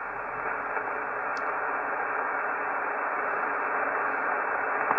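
Steady hiss of shortwave band noise from a web SDR receiver in upper-sideband mode on the 20-metre band, heard between transmissions with no station coming through, the hiss held inside the receiver's narrow voice passband and slowly growing louder.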